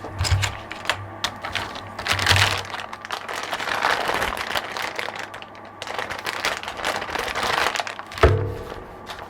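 Packaging being handled during an unboxing: rustling and crinkling wrap with a run of clicks, and a sharp knock with a short ring about eight seconds in, over quiet background music.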